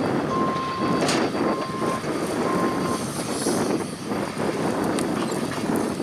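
JCB telehandler's diesel engine running under a rough, gusty-sounding noise, with the warning beeper sounding three times about a second apart in the first half, a steady high beep each time.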